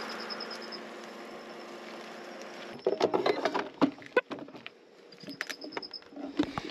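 Barramundi frying in a pan with a steady sizzle. From about three seconds in there is an irregular run of sharp clicks and knocks of utensils.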